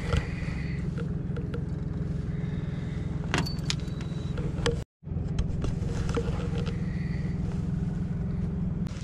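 A boat's outboard motor running steadily with a low drone. A few light clicks come about three and a half seconds in, and the sound drops out for a moment near the middle.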